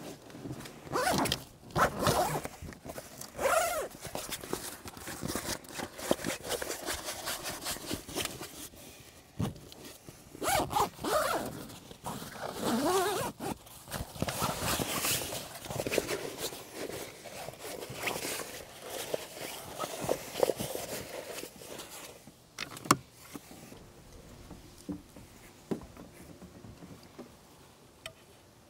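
Zippers being pulled open and shut in a run of short, irregular strokes, with rustling and scraping of camping gear. It quietens near the end, leaving a few sharp clicks.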